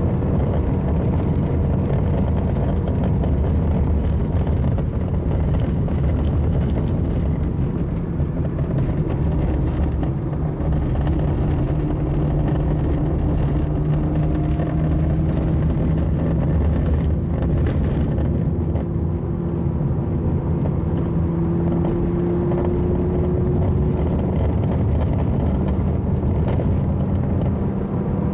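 Car engine and tyre noise inside the cabin while driving, a steady hum with the engine note rising slowly through the middle.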